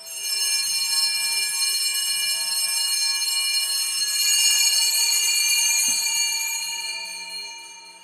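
Altar bells (a cluster of small hand bells) shaken in a continuous bright jingle for the elevation of the chalice at the consecration. The ringing is steady for about six seconds, then fades out.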